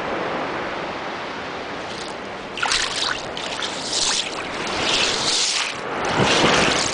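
A thin wash of surf running over and draining through a beach of broken seashells. A steady wash at first, then from about two and a half seconds in, a string of hissing surges about a second apart as the water fizzes through the shells.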